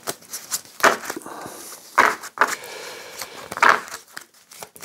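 A deck of playing cards shuffled by hand: several short bursts of cards rustling and flicking against each other.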